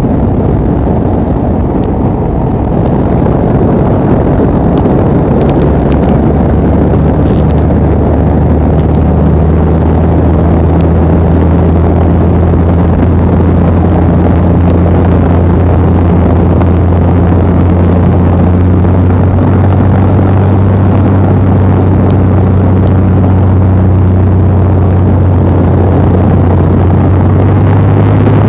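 Piston engine and propeller of the L-19 Bird Dog, a high-wing light plane, droning steadily, heard from inside its cabin with wind rush over it. The pitch of the drone rises slightly near the end.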